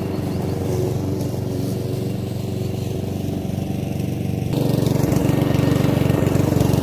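Petrol walk-behind rotary lawn mower running steadily while being pushed across grass, getting louder about four and a half seconds in as it comes close.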